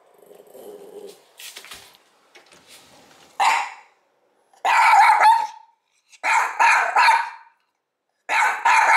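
Mameshiba (small Shiba Inu) barking, alert barking out of an open window at something outside: a single bark about three and a half seconds in, then three loud volleys of several quick barks each.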